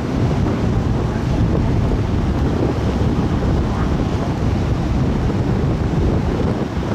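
Wind buffeting the microphone aboard a car ferry under way: a steady, low rushing noise, with the sea's wash beneath it.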